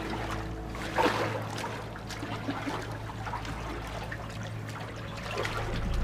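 Water splashing and sloshing as several people wade through flooded ground, with a sharper splash about a second in, over a low steady hum.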